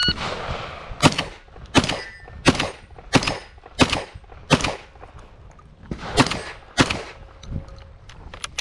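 A short electronic beep at the very start, then a semi-automatic shotgun fired rapidly eight times. There are six shots in a steady string about 0.7 s apart, a pause of over a second, and two more, followed by a few lighter clanks.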